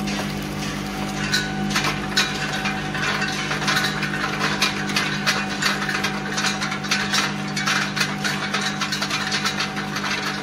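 Bouillon-cube bag packing machine running: a steady hum with frequent irregular clicks and rattles, busier after about two seconds in.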